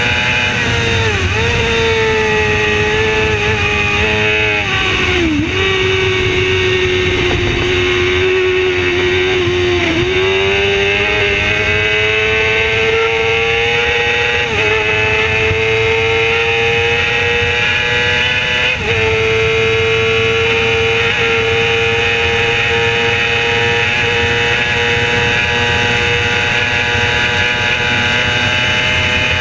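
Racing motorcycle engine at high revs, heard onboard with wind rush. The pitch dips about a second in and drops sharply about five seconds in, then climbs steadily from about ten seconds in through the gears, with brief breaks at gear changes about fourteen and nineteen seconds in, and holds high and nearly steady near the end.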